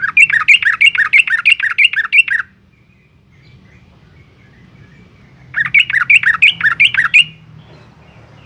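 Yellow-vented bulbul singing: two runs of quick, bubbling, evenly repeated notes about two seconds each, separated by a pause of about three seconds.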